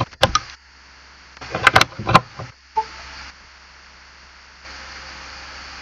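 A few sharp clicks: one just after the start and a quick cluster of three or four about two seconds in, then a brief faint beep near three seconds.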